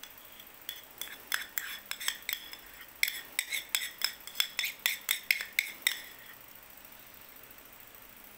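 A metal spoon clinking and scraping against the inside of a bowl, scooping up food. It is a quick run of sharp, ringing clinks that starts under a second in, comes faster after about three seconds, and stops about six seconds in.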